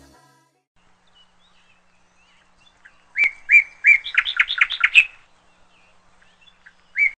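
A bird chirping: a few short, high calls, then a quick run of chirps, and one more call near the end, over a quiet background.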